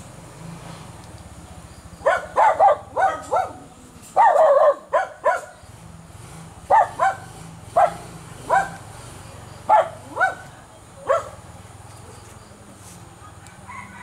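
A dog barking off and on: about a dozen short barks in irregular runs, starting about two seconds in and stopping about eleven seconds in.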